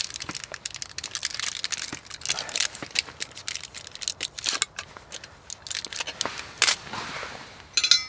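Close handling noise: crinkling and crunching with many sharp little clicks, and a short metallic clink near the end.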